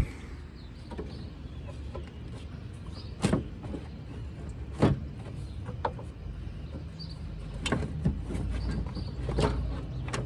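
Scattered knocks and clunks of car parts being handled and fitted in the engine bay, over a steady low rumble.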